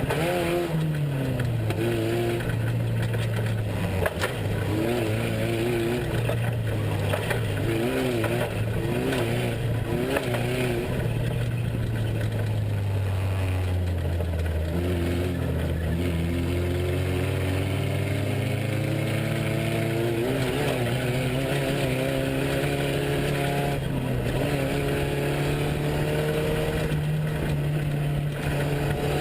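Off-road race truck's engine running hard under load. Its pitch drops early on, sinks lowest about halfway through, then climbs steadily through the second half, with a short knock about four seconds in.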